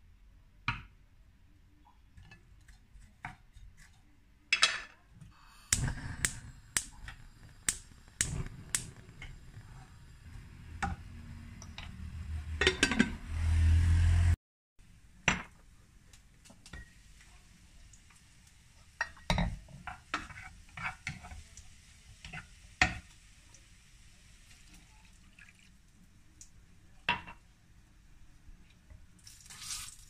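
Cooking sounds at a nonstick pot on a gas stove: a wooden spoon, a glass lid and a drinking glass knocking and clinking against the pot over cooking meat. A louder rumbling stretch cuts off abruptly about halfway through, followed by a faint steady hiss and water poured from a glass into the pot.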